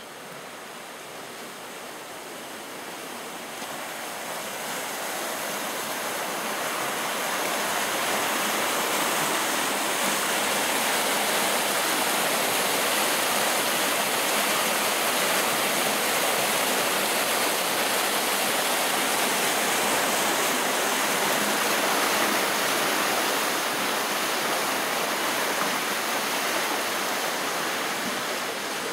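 Rushing water, a steady even rush that swells over the first several seconds, holds, then eases slightly near the end.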